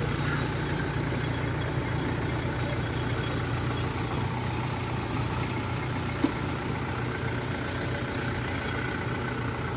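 Kubota DC-105X combine harvester's diesel engine running steadily while the tracked machine crawls up onto a narrow, steep levee. There is a single faint click about six seconds in.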